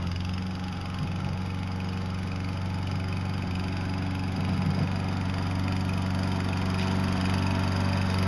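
Small engine of a walk-behind self-propelled lawn mower running steadily at an even speed while it pushes snow with a plow blade attached.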